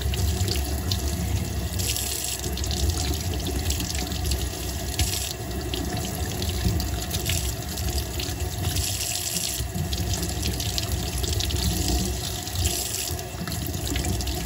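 Kitchen tap running into a stainless steel sink while broccoli florets are rinsed by hand under the stream; the splashing rises and falls as hands and broccoli move in and out of the water.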